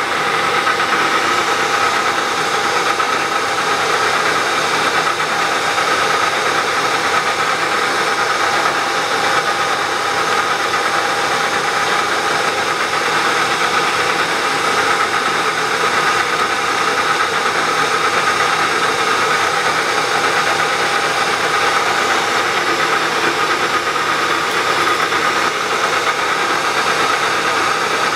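Milling machine spindle running steadily with a steady whine, a center drill turning in it to spot-drill and countersink hole positions.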